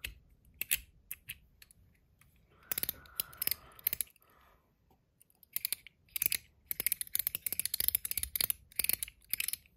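Metal haptic ratchet coin of an AntDesign Comma 2.0 fidget being turned, giving sharp detent clicks. The clicks come singly and unevenly at first, then as a fast, dense run of clicks in the second half.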